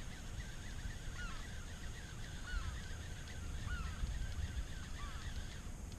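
A chorus of birds calling, many short chirping calls overlapping, with four louder arched calls about every second and a quarter, over a steady low rumble.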